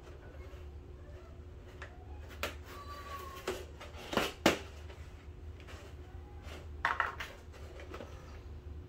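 Clicks and knocks from a hand tool worked into a stiff black plastic strip and from the strip being handled, a handful of them with the sharpest about four and a half seconds in, and a brief rustling scrape near seven seconds, over a steady low hum.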